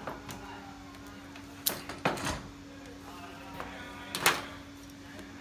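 A plastic handheld car vacuum cleaner and its power cord being handled on a table: a few knocks and clatters, the loudest about four seconds in, over a steady low hum.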